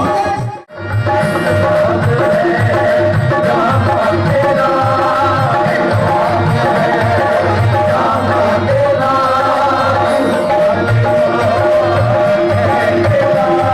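Live qawwali music: a tabla rhythm under a sustained melodic line with a steady held note. The sound drops out briefly just under a second in.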